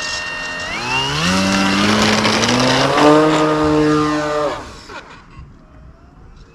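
Brushless electric motor and propeller of an E-flite Ultimate 3D RC plane whining, rising in pitch about a second in as the throttle comes up, stepping higher near three seconds, then cutting out about four and a half seconds in and winding down. The cut-out is the throttle dropping out unexpectedly in flight.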